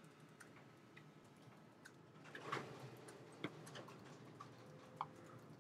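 Near silence in a quiet room, with faint scattered clicks and a brief rustle about two and a half seconds in.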